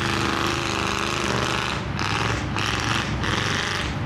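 Mud truck engine running hard with a rapid pulsing rumble, under a broad hiss that comes in surges and drops out briefly several times in the second half.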